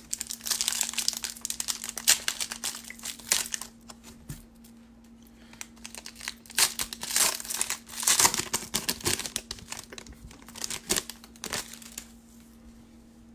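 Foil wrapper of a 2019 Panini Certified football card pack crinkling and tearing as it is opened by hand, in bursts of crackling with short pauses. It stops about a second before the end.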